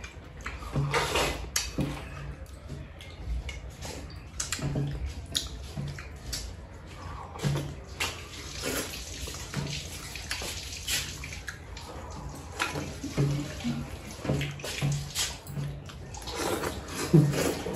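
Water splashing and pouring in short, irregular bursts.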